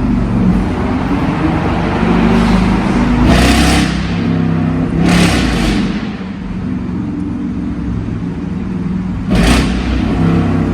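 Mercedes-Benz E55 AMG's supercharged V8 (M113K) running as the car is driven, with three brief loud rushes of noise about three and a half, five and nine and a half seconds in.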